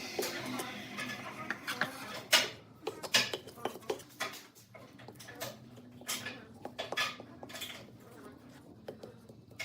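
Irregular clinks and knocks of hard objects being handled and set down in a woodworking shop, after the wood-cutting sound stops. One louder knock comes a little over two seconds in.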